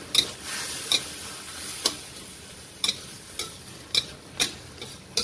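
Spatula stirring a sizzling pan of cucumber stir-fry, with about eight sharp clacks against the pan at irregular intervals, roughly one a second, over a steady sizzle.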